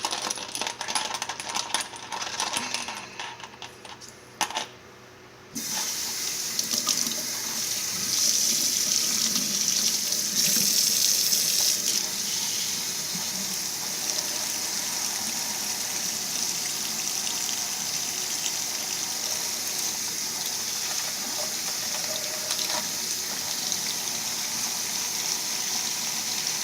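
Small metal bearings clinking against one another and the bowl for the first few seconds, then a tap turned on about five seconds in, water running steadily into the sink for the rest, heaviest a few seconds after it starts.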